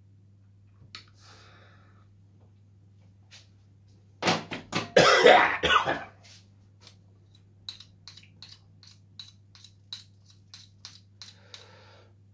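A man coughing in a short, loud fit of several coughs about four seconds in, followed by a run of light clicks, about two or three a second, over a steady low hum.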